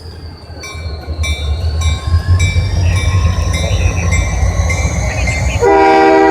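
Train running past with a steady low rumble and a thin high wheel squeal that slowly rises in pitch. Near the end a locomotive air horn starts, loud and steady, a chord of several tones.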